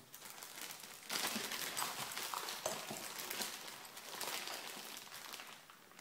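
Someone rummaging through parts: crinkling and rustling with many small clicks and knocks, from about a second in until near the end.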